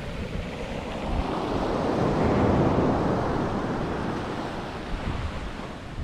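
Sea surf breaking and washing up a sandy shore, swelling to its loudest about two to three seconds in and then ebbing away. Wind buffets the microphone underneath.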